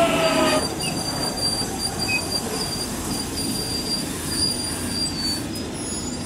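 London Underground 1996-stock Jubilee line train slowing at the platform: a falling traction-motor whine stops about half a second in, leaving a steady rolling rumble with a thin, high wheel squeal.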